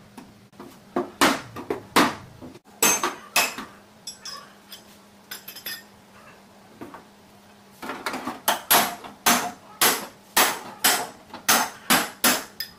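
Hammer striking the steel trunk lid of a Nissan Sentra to beat out accident damage, sharp metallic blows. A few scattered knocks come in the first few seconds, then a steady run of blows about two to three a second fills the last five seconds.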